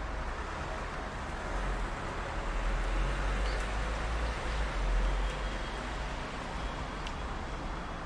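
Steady outdoor background noise dominated by a low rumble that swells in the middle and then eases, with a couple of faint, short high bird chirps.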